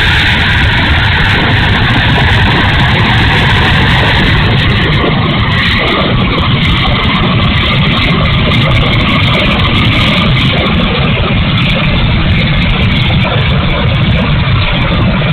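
Twin 64 mm electric ducted fans of an E-flite A-10 Thunderbolt II model jet running steadily and loudly, a noisy sound that the owner takes for a bad motor.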